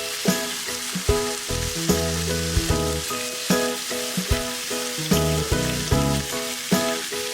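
Food sizzling and frying in hot oil in a pan, a continuous hiss, under background music with a steady beat about every 0.8 seconds.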